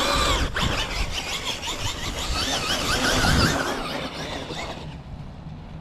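Brushless motor of a Traxxas Maxx Slash RC truck whining with a wavering pitch as the throttle is pumped, over tyre and dirt noise. The truck is running on front-wheel drive only, its rear drive output cup snapped.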